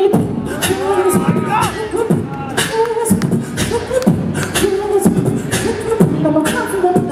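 Beatboxing into a handheld microphone, the hand at times cupped around it: sharp snare-like hits in a steady beat over deep falling bass sounds, with a hummed melody woven in.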